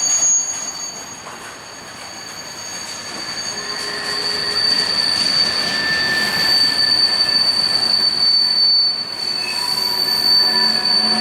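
Freight cars rolling past with their steel wheels squealing on the rail in a steady high-pitched whine. It dips about a second in, then builds back up.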